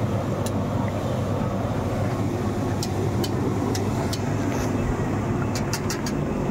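Gas-fired puffed-rice (murmura) roaster machine running: a steady low hum with scattered short sharp clicks.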